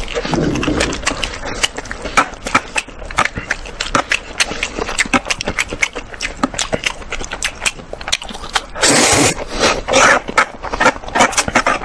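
Close-miked eating sounds: fast wet chewing and lip-smacking clicks, then loud slurping of instant noodles in several pulls from about nine seconds in.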